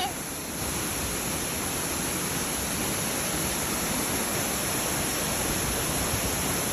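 Waterfall: a steady rush of water falling into the pool below.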